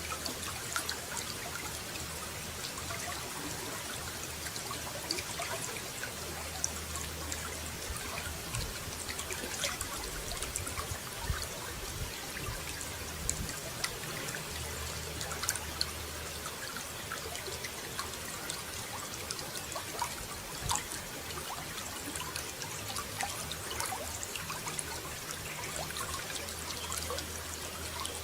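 Running water trickling and splashing steadily, with a stream of small drips and splashes throughout.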